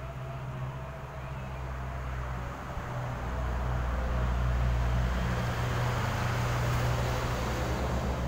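Low, steady engine rumble of a nearby motor vehicle. It grows louder about three seconds in and stays up, with a hiss rising alongside it.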